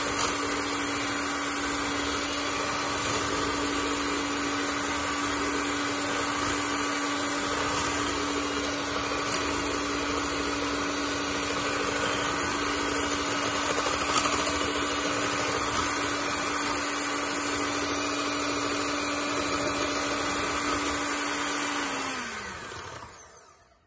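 Electric hand mixer running at a steady speed, its beaters whisking egg yolks in a bowl until they turn pale. Near the end it is switched off and the motor winds down, its hum falling in pitch before stopping.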